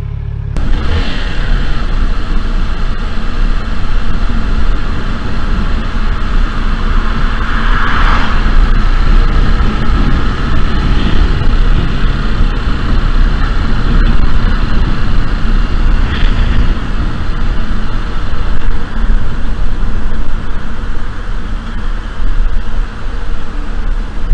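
Motorcycle riding along a road: engine running under a steady rush of wind noise, with a swell about eight seconds in.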